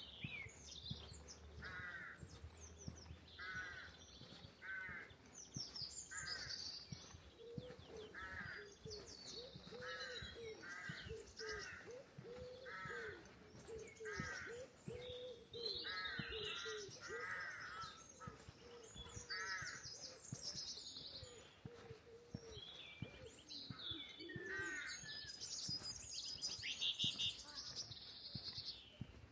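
Crows cawing over and over, short harsh calls repeating through the whole stretch. Small songbirds chirp and twitter at a higher pitch alongside.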